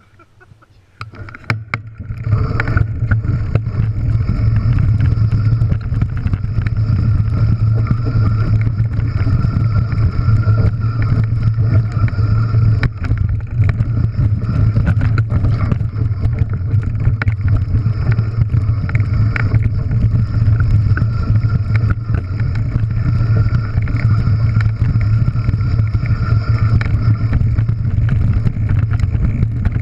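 Enduro mountain bike setting off after about two seconds of quiet, then rolling fast down a rocky scree trail: a steady rumble of tyres over loose stones and wind on the microphone, with constant clicks and rattles from stones and the bike.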